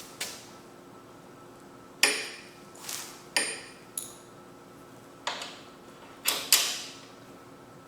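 Small metal hardware and hand tools being handled: about eight separate clinks and knocks, a couple of them with a brief metallic ring, as a bolt, washer and lock nut are fitted to a lawnmower's loose handle.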